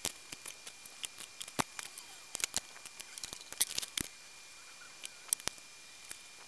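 Irregular light clicks and taps of bench work: wires, a soldering iron and the opened plastic charger case being handled on a countertop while a charge lead is soldered to the battery contacts.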